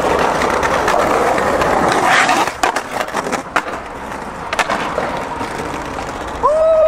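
Skateboard wheels rolling on pavement, then a run of sharp clacks and scrapes as the board hits and works a concrete ledge about two and a half seconds in. Near the end a person lets out a long, loud held shout.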